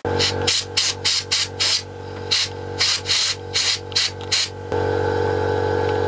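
Compressed-air blow gun fired in quick short blasts, about fifteen of them, blowing out a chainsaw carburettor; the blasts stop about four and a half seconds in. Under them runs a steady mechanical hum that carries on alone after the blasts end.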